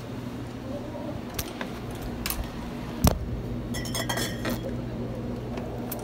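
Glass bottles clinking together as they are taken from a drinks cooler and handled, a cluster of ringing clinks about four seconds in, after a loud knock about three seconds in and a few lighter clicks, over a steady low hum.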